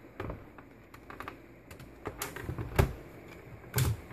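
A handful of sharp plastic clicks and knocks from a Lenovo ThinkPad T430 laptop being handled as it is shut down and its battery unlatched and pulled out. The loudest knock comes just under three seconds in, with another about a second later.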